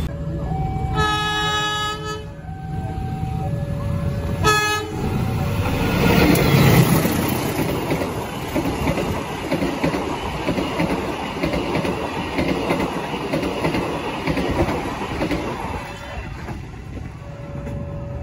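A freight train's diesel locomotive sounds its horn in one long chord-like blast and then a short one, and the train then runs over the level crossing, wagons rumbling and wheels clattering for about ten seconds before fading. The crossing's warning alarm alternates between two notes before and after the train passes.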